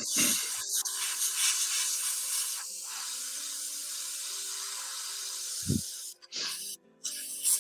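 A steady hiss that starts suddenly and cuts off sharply near the end, over quiet background music.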